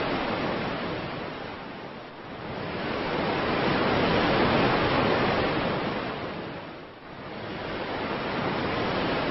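Surf washing onto the shore: an even rushing noise that swells and fades in slow surges, loudest about four seconds in and again near the end.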